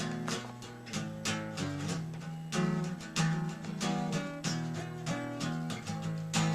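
Music: a song's acoustic guitar strummed in a steady rhythm.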